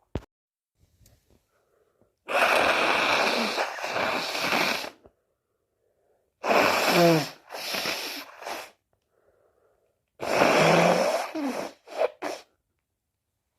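A person sneezing several times, loud noisy bursts with a falling voiced cry in them, followed by a few short sniffs near the end.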